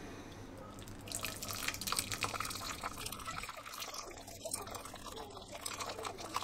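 Hot water poured in a thin stream from a glass electric kettle, splashing and dripping over a small 3D-printed plastic piece into a stainless steel pot; the splashing grows denser about a second in.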